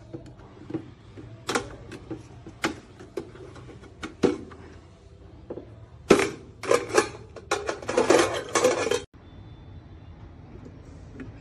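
Kaisa Villa mini deep fryer being handled: scattered clicks and knocks from its lid, then a wire-mesh frying basket clattering against the metal pot in a loud, dense run past the middle. It cuts off abruptly, leaving a faint steady background.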